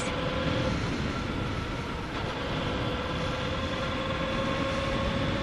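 Motorcycle engine running at a steady riding speed, heard from the bike itself, mixed with wind and road noise; the engine note climbs slightly near the end.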